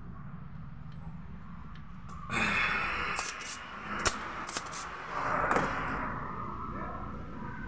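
Spring-loaded desoldering pump handled and fired on a TV circuit board: a rasping noise, then several sharp clicks, the loudest a snap about four seconds in, then another short rasp, over a steady low background rumble.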